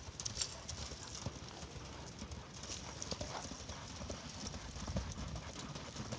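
Hoofbeats of a horse moving about: faint, irregular soft thuds and knocks.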